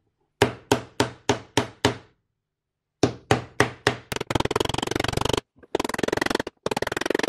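Hammer blows on a wooden subwoofer cabinet being fitted together: a run of six sharp strikes, a pause, and four more, about three a second. From a little past halfway, a rapid rattle runs in short spells.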